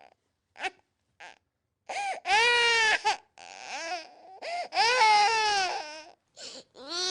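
Infant crying: a few short gasping sobs, then loud, long wailing cries that rise and fall in pitch, broken by quick catches of breath.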